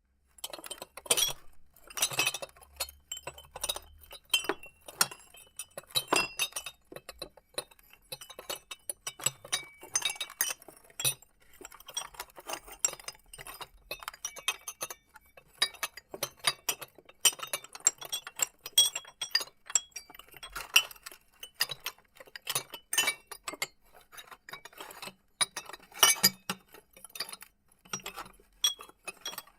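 Glass items rattling and clinking against one another in quick, irregular runs of chinks with short pauses between them.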